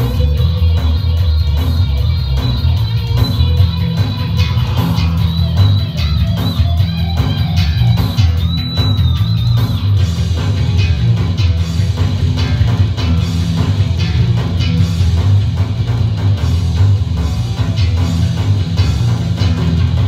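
Live rock music played loud on a Stratocaster-style electric guitar through an amplifier, with a heavy low end.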